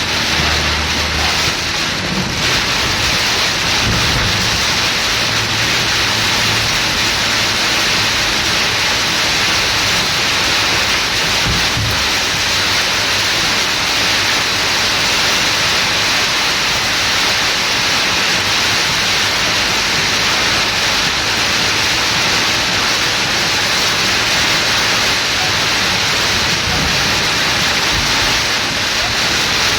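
Steady, loud rush of water from heavy rain and floodwater around a car driving down a flooded street, with a few short low thumps under it early on and about twelve seconds in.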